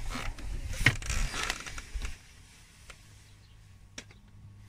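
Hard plastic dash trim panel being handled and pulled clear: rubbing and creaking with a sharp click just under a second in, dying down after about two seconds to a few faint ticks.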